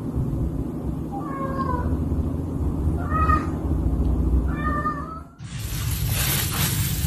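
Tabby cat meowing three times, about a second and a half apart, with a toy held in its mouth. Near the end a steady rushing noise suddenly takes over.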